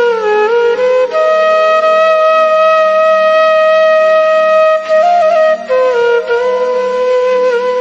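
Background music: a solo flute playing a slow melody over a steady low drone, holding one long note for about four seconds in the middle before moving on.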